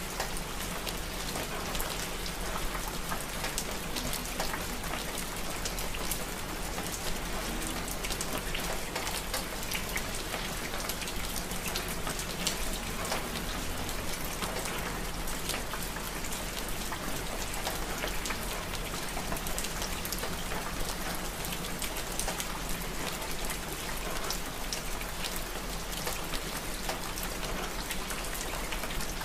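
Steady rain, a constant even hiss dotted with many small, sharp drop hits.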